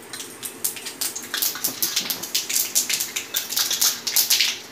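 Mustard seeds and dried red chillies sizzling in hot mustard oil in a steel kadhai. The seeds crackle and pop in quick, irregular clicks that grow denser and louder over the few seconds as the seeds begin to splutter.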